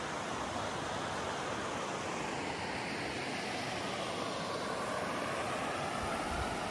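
Steady rush of river water flowing, an even hiss with no breaks.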